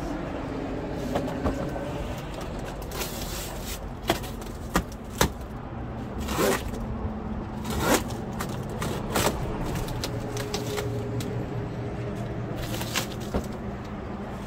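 Cardboard boxes and packaging being handled on a pallet: scattered knocks, clicks and a few scrapes over a steady low hum.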